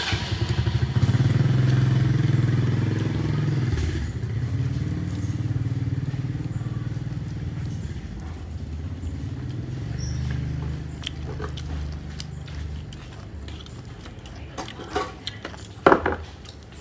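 A motorbike engine runs close by, loudest in the first few seconds, then slowly fades over about ten seconds. Near the end come a few sharp clicks.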